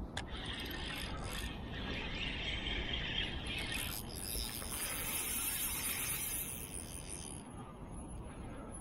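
Fishing reel ratcheting steadily, line running off or being wound in while a fish is hooked.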